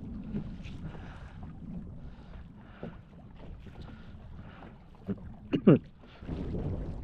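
Water and wind around a small canoe, with soft repeating swishes and wind rumble on the microphone. About five and a half seconds in there is one short, loud sound whose pitch falls steeply.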